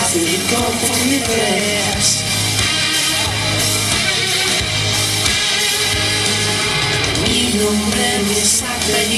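Rock music with a singer, dense and steady in level.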